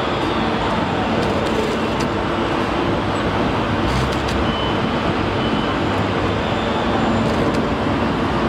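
Steady machinery rumble of a container crane lowering a stack of flat-rack containers on its spreader, with a faint hum and a few light clicks.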